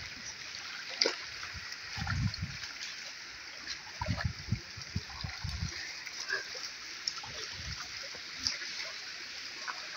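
Shallow river water running and splashing, with a few dull low thumps about two seconds in and again between four and six seconds in.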